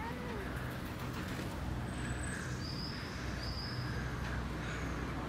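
A steady low rumble, with a few short, thin, high bird chirps between about two and five seconds in.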